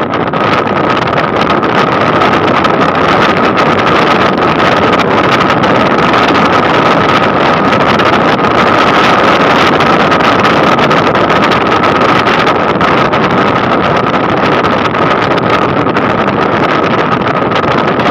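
Motorcycle riding at steady cruising speed: wind rushing over the microphone together with the engine running, a steady high-pitched whine over the rush.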